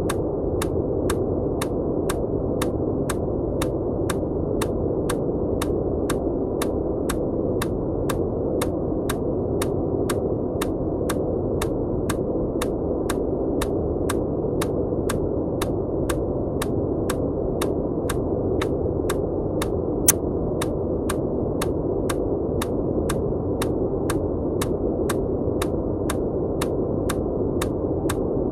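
Steady dull rushing noise, with little in the high tones, overlaid with sharp even clicks about twice a second: an EMDR bilateral-stimulation click track over white noise. One click about two-thirds of the way through is a little louder.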